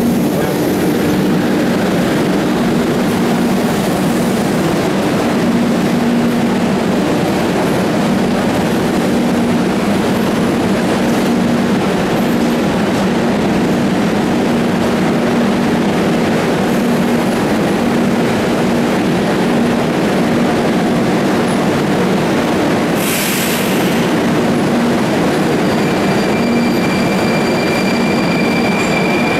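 Moscow metro trains and station: a loud continuous rumble with a steady low hum, a short hiss a little over three-quarters of the way through, and a high steady whine that comes in near the end.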